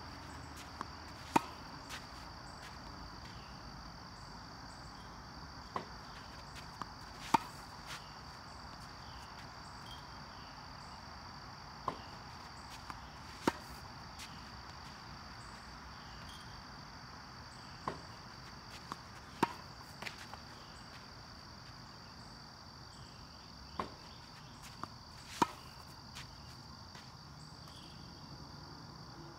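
Tennis racket hitting backhand slices off a ball machine: five sharp strikes about six seconds apart, each with fainter knocks of the ball launching and bouncing just before it and a bounce after. Insects drone in a steady high note throughout.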